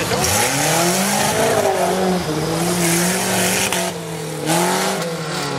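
Off-road 4x4 competition vehicle's engine revving hard in surges: the pitch climbs early, drops back about two seconds in, holds, dips and climbs again near the end. Patches of high hiss sound over the engine.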